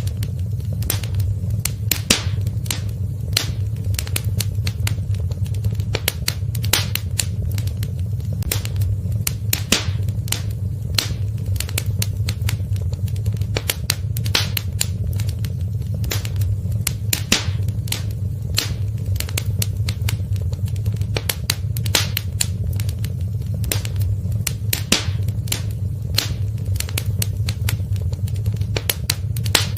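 Wood fire burning in a fireplace, crackling and popping irregularly with sharp snaps over a steady low rumble of the flames.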